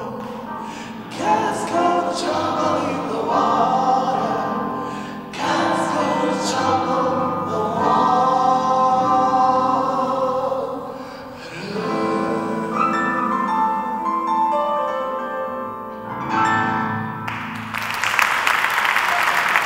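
Female gospel vocal group singing in harmony; the song ends about two seconds before the close and the audience breaks into applause.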